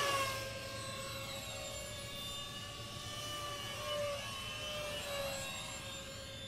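Several 64mm electric ducted fan RC jets flying overhead, their fans making a high steady whine of several tones. One passes close at the start, where it is loudest and its pitch shifts, and the sound swells briefly again about 4 and 5 seconds in as others pass.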